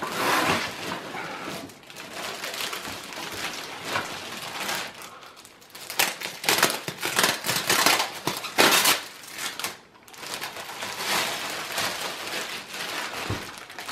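Clear plastic wrapping crinkling and rustling in irregular bursts as the plastic-wrapped seat of a gaming chair is handled and lifted out of its cardboard box.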